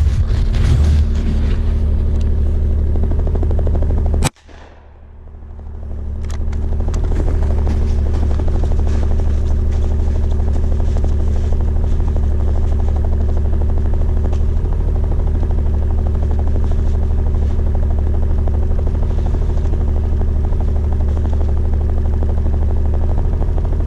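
Ski-Doo Skandic 900 ACE snowmobile's three-cylinder four-stroke engine idling steadily. A single sharp gunshot about four seconds in makes the sound drop out, and it takes a few seconds to come back.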